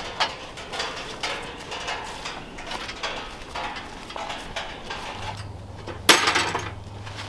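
Wire-mesh cage trap rattling and clinking as it is carried and handled, with irregular footsteps and rustling in dry leaves; a loud metallic clank about six seconds in as the trap is worked at the door.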